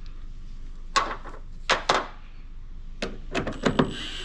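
A few sharp knocks and clinks as hand tools and the removed engine-mount bolts are handled and set down, about five or six in all. Near the end a steady whir begins.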